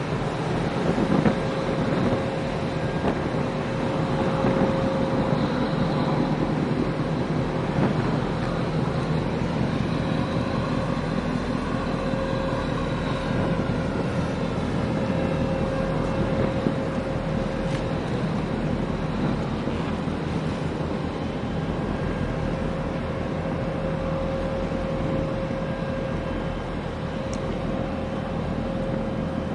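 Steady low rumble of boat engines on the water, with a constant hum and wind buffeting the microphone.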